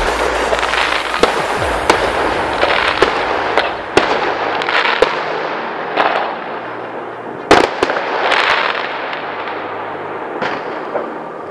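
Fireworks: aerial shells bursting in a string of sharp bangs, each followed by the crackle of falling stars. The loudest bang comes a little past the middle, and the bursts thin out towards the end.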